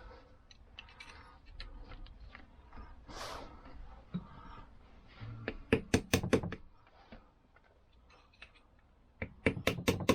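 Hand tools and metal parts being handled while starting a bolt on a scooter engine casing: scattered light clicks, a group of about four sharp knocks around the middle, and another quick run of knocks near the end.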